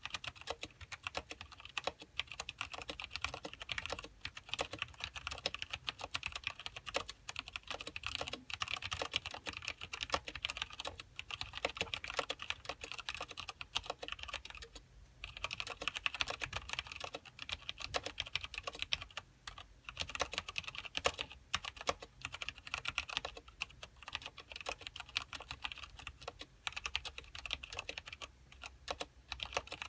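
Continuous fast typing on a mechanical keyboard with Cherry MX Black linear switches and thin ABS keycaps: rapid key clicks and clacks with a few short pauses, one about halfway through.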